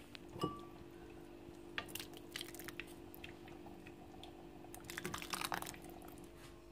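Light clicks and taps of ceramic soup bowls and spoons being handled and set down, in a few short clusters, over a steady low hum.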